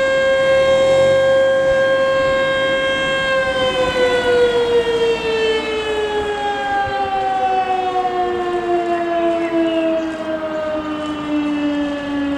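Fire-alarm siren sounding a steady tone with a full set of overtones, then about three and a half seconds in starting to wind down, its pitch falling slowly and smoothly. It is the siren alarm that calls out the volunteer fire brigade.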